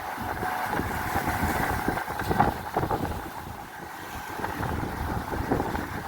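Fishing boat's engine running steadily while strong wind buffets the microphone, with a few thumps.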